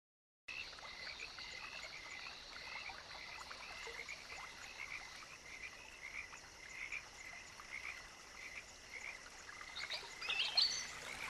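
A frog chorus: many small frogs calling over and over above a faint steady hiss. It starts suddenly about half a second in, and louder, higher calls join near the end.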